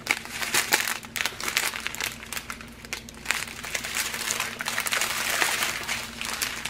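Small clear plastic bags of round diamond-painting drills crinkling and rustling as they are handled and shuffled, a dense irregular crackle that grows busier about halfway through.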